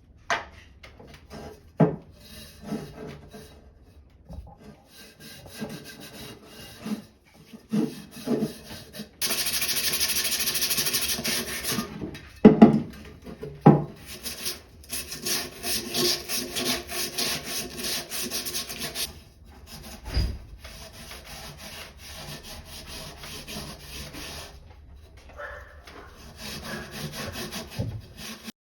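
Rubbing and scraping strokes from hand-cleaning the kerosene heater's parts, coming in uneven spurts. About nine seconds in there is a steady hiss lasting about three seconds. After it comes a run of rapid scrubbing strokes.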